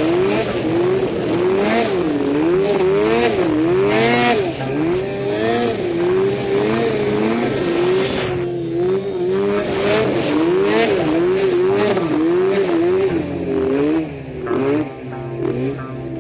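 Arctic Cat M1000 mountain snowmobile's two-stroke twin engine running hard through deep powder. Its pitch rises and falls over and over, about once or twice a second, as the throttle is worked, with a steadier stretch in the middle.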